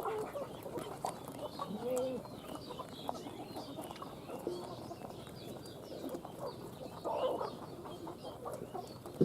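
Farmyard birds: a hen clucking a couple of times, with small birds chirping faintly throughout.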